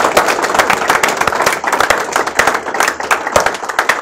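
Audience applauding, many hands clapping densely, the clapping easing a little near the end.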